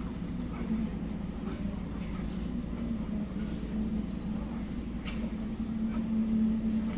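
Steady low mechanical hum, like a fan or motor running, with a few faint clicks, the clearest about five seconds in.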